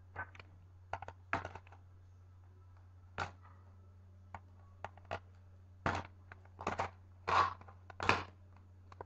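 Hands working at a plastic and taped fingerboard package: irregular crinkles and clicks, with two longer, louder tearing rasps near the end.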